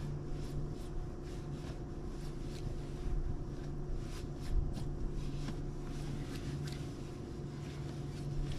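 Steady low electric hum of a bass boat's bow-mounted trolling motor holding the boat along the bank, with faint scattered ticks of reels and feet on the deck.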